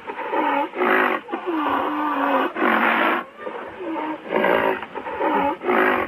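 Rhinoceros calling repeatedly: about six short pitched calls, each dipping and then rising in pitch, with a longer call about two seconds in.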